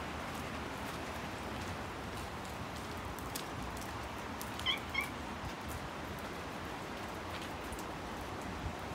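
Two short, high cat meows in quick succession about five seconds in, over a steady hiss of rain.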